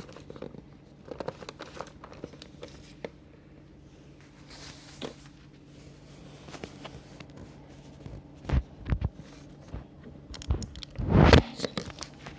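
Packaging being handled and torn open: scattered clicks and crinkles, a few louder knocks about eight and a half seconds in, and a louder crackling, tearing burst near the end.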